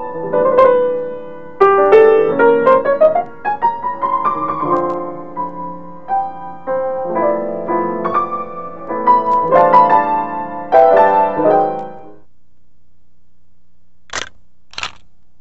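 Solo piano music, a run of notes and chords, that stops about 12 seconds in. Near the end come two short camera shutter clicks about half a second apart.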